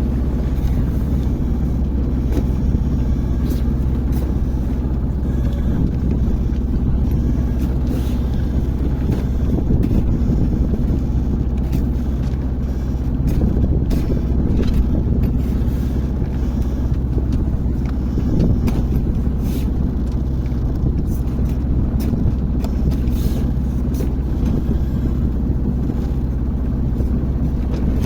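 Small sailboat under way: a steady low drone with wind on the microphone and scattered short knocks.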